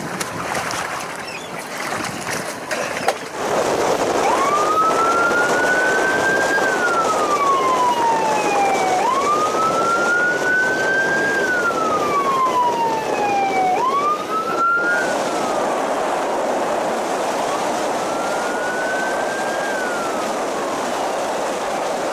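Wailing siren of a fire-rescue boat. It starts about three seconds in, and each cycle rises and then slowly falls, lasting about four to five seconds. Underneath is a steady rush of wind and water from the boat running at speed.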